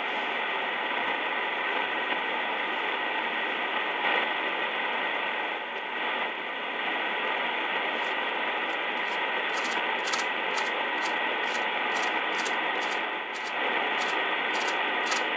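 Steady hiss of band noise from an R-390A tube communications receiver's audio output, tuned on the 20-meter band with no station coming in. From about halfway, a run of light clicks, roughly two a second, comes from a control on the receiver being worked by hand.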